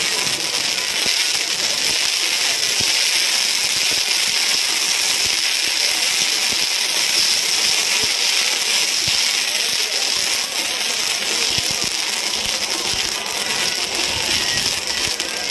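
Handheld firework fountains hissing with a steady, dense crackle.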